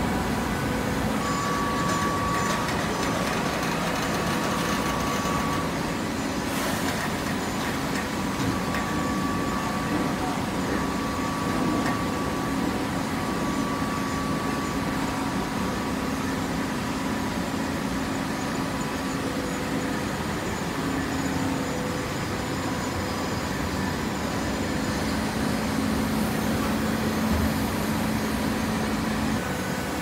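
Hydraulic horizontal baler running: a steady machine hum with a few held tones, no distinct strokes or impacts.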